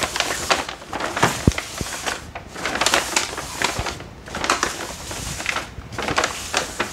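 Bags crinkling and rustling as they are handled, in irregular crackles.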